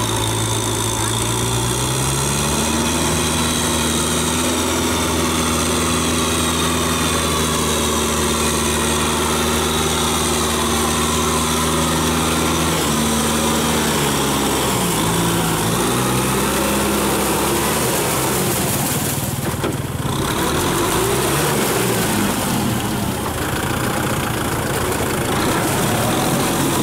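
Kubota tractor's diesel engine running under load as it pulls a rotary tiller through wet paddy mud. The engine note rises about two seconds in, holds steady, then dips and wavers around the middle and afterwards.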